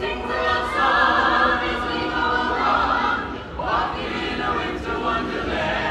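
A small choir of carolers singing a holiday song together in harmony, with a short break between phrases about three and a half seconds in.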